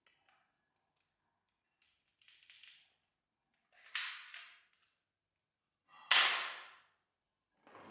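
Two sharp toy gun shots about two seconds apart, the second louder, each trailing off in a short hiss.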